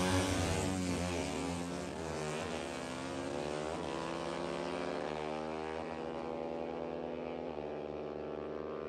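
Two motorcycles launching off the drag-strip start line and accelerating hard. The engine note climbs through each gear and drops at each upshift, about five shifts in a row, and grows fainter as the bikes pull away.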